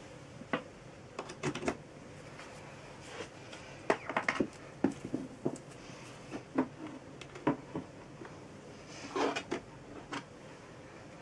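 Scattered clicks, knocks and short rustles of hands handling a laptop and its power cable on a table, with a longer rustle near the end.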